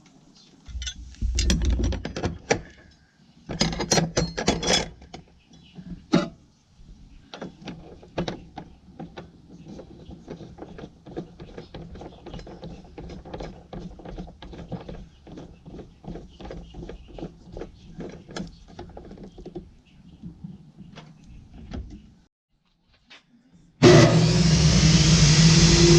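Clatter and knocks of parts being handled, then a long run of quick, even clicks. About two seconds before the end, the Ryobi 10-inch 15-amp table saw's motor switches on abruptly and runs loud and steady.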